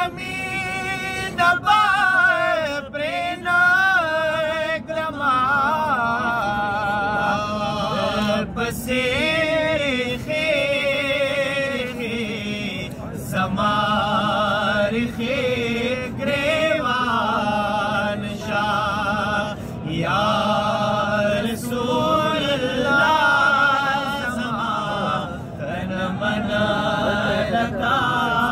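A naat, Islamic devotional poetry in praise of the Prophet, sung unaccompanied by a male voice. It is sung in long, wavering held notes that glide up and down, broken by short pauses for breath.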